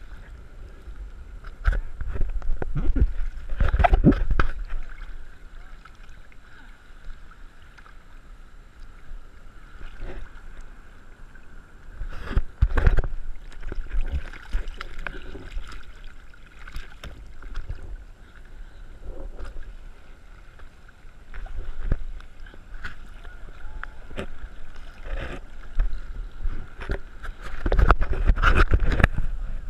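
Seawater sloshing and splashing around a camera held at the surface while paddling a surfboard. There are louder rushes of water over the housing about two seconds in, around twelve seconds and near the end.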